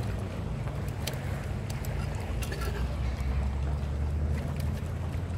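Light rustling and scattered clicks as a fishing bag and mesh keep net are handled, over a steady low rumble.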